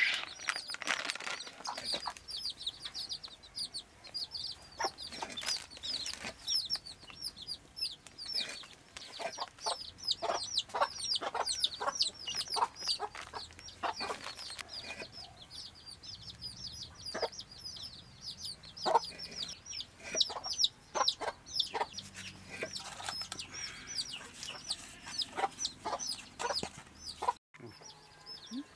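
Chickens: a steady stream of rapid, high, downward-slurred chirps, with short clucks scattered among them.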